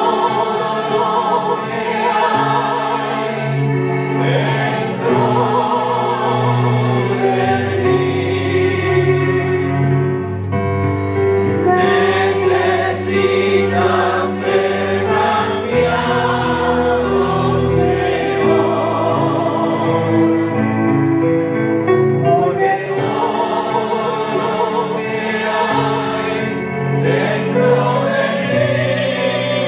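Church choir singing with instrumental accompaniment, in long held chords over a bass line that changes every few seconds.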